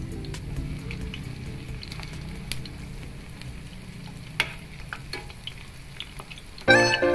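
Batter-coated oyster mushrooms deep-frying in a steel pan of hot oil: a steady sizzle, with a few sharp clicks of a metal spoon against the pan as the pieces are stirred. Music comes in near the end.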